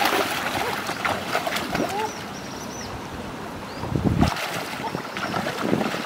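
Shallow river water splashing and sloshing as people wade and grope through it, with a low buffet about four seconds in.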